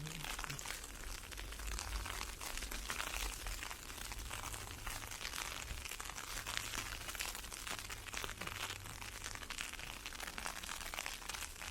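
Blowing ice pellets ticking steadily, a dense fine crackle, over a low rumble.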